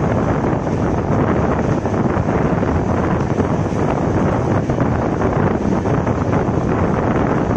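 Wind buffeting the microphone held out of a moving passenger train, over the steady running noise of the train on the track.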